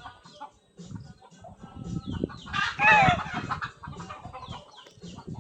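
A flock of Rhode Island Red and Black Australorp chickens clucking, with one loud short call about three seconds in. Brief, high, falling chirps are scattered throughout.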